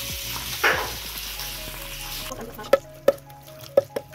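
Tempering of cumin, garlic, dried red chillies and curry leaves sizzling in hot oil in a black iron kadai, with one louder burst under a second in. The sizzle stops about two seconds in. A wooden spoon then knocks sharply against a metal pot of cooked greens, about four times.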